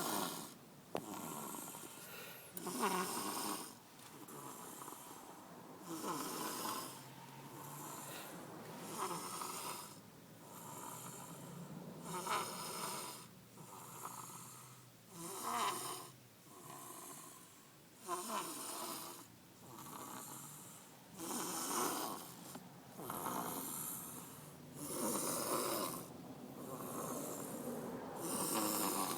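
Snoring: about ten rhythmic snores, one roughly every three seconds, with quieter breaths between them.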